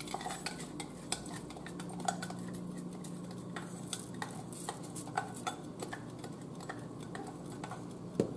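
Uncooked rice tipped from a glass bowl into a pot of hot water, with many irregular light clicks and taps of glass and utensils against the bowl and pot. A low steady hum sits underneath from about two seconds in.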